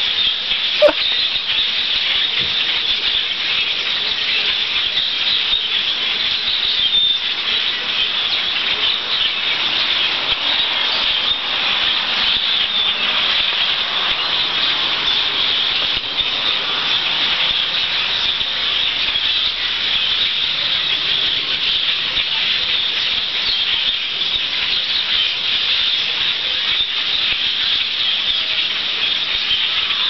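Continuous high-pitched din of a huge migrating flock of birds calling overhead, countless calls merging into one steady wash of sound.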